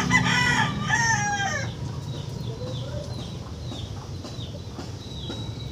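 A rooster crowing once, a call of about a second and a half that falls in pitch at the end. Quick high chirps follow over a steady low hum.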